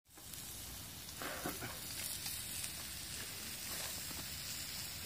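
Food sizzling as it fries on a stone pan, a steady hiss with a few light pops.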